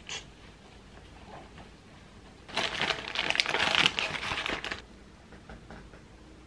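A small pouch being handled and packed into a bag, crinkling and rustling for about two seconds, starting a little over two seconds in.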